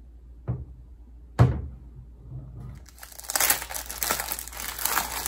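Two knocks in the first second and a half, then clear plastic bag packaging crinkling steadily from about three seconds in as the kit is handled and opened.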